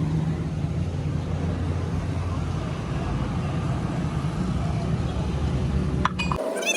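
Tractor diesel engine running at a steady speed, a low even hum that cuts off suddenly near the end.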